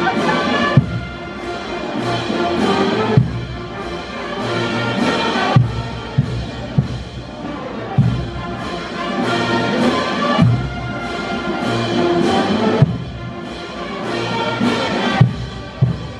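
Brass band playing a slow processional march, with a heavy drum stroke about every two and a half seconds.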